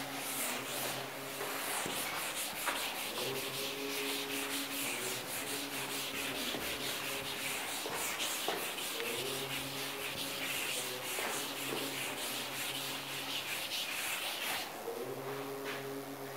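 Felt chalkboard duster rubbing back and forth across a chalkboard, wiping off the writing in quick repeated strokes that stop shortly before the end.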